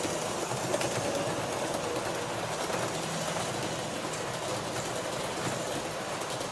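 Model railway train running along the track: a steady running noise with faint, irregular clicks.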